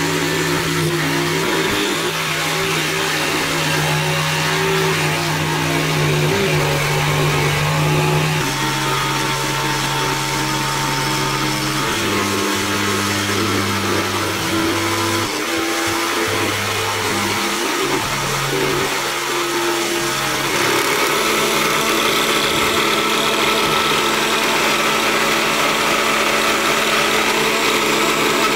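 Small electric motor of a mini 8-in-1 hobby machine running its table jigsaw blade through a wooden board, a steady mechanical hum over the rasp of the cut. The hum's pitch steps up and down several times.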